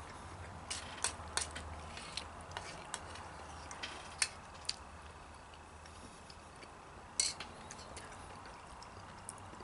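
Forks clicking and scraping against metal bowls as pasta is scooped up. Scattered light clinks come a second or so apart, the sharpest about four seconds in and a short cluster about seven seconds in.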